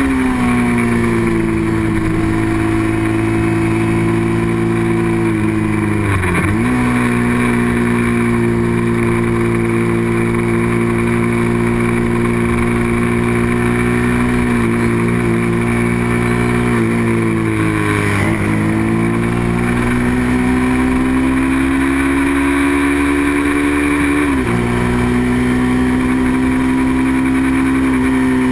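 Small-displacement racing motorcycle engine running hard at high revs, its note creeping slowly upward. Three times (about six seconds in, near eighteen seconds and near twenty-four) the pitch dips sharply for an instant and settles a little lower, as in quick gear shifts.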